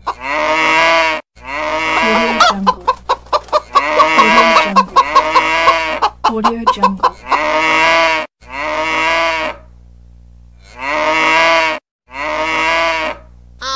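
Animal-sound notification ringtone: farm-animal calls, mainly chicken clucking, repeated in short phrases about a second long, with a stretch of fast clucking pulses in the first half and a short pause before the last two calls.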